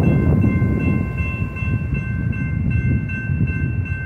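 Railroad grade-crossing warning bell ringing steadily over the low rumble of an Amtrak passenger train standing across the crossing.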